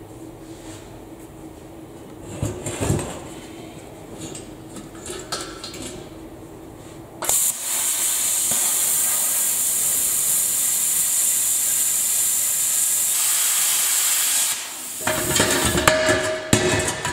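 A steady high-pitched hiss cuts in abruptly about seven seconds in and runs for about seven seconds before stopping. A clatter of ringing metal knocks and clanks follows near the end.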